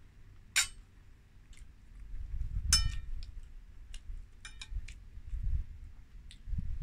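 Metal spoon clinking and scraping against a ceramic plate as food is scooped up: a handful of light clinks, with one louder, ringing clink about three seconds in, over a low rumble.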